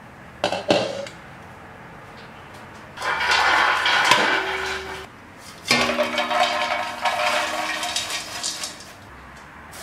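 Freshly popped popcorn poured out of a pot into steel dishes, a dry rustling tumble in two pours of about two and three seconds. A couple of metal clinks come about half a second in, and a metallic ring sounds under the second pour.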